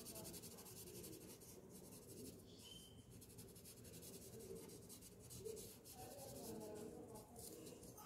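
Faint scratching of a graphite pencil shading on paper, in short strokes.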